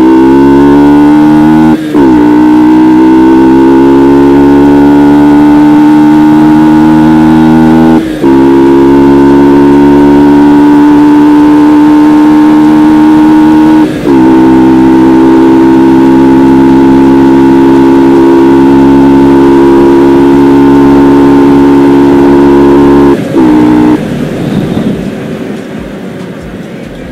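Loud Yamaha R15 V2 single-cylinder four-stroke engine under acceleration through the gears. There are four short breaks for upshifts, and after each one the engine note drops lower and then holds or climbs slowly. Near the end the throttle closes and the engine note fades under wind rush.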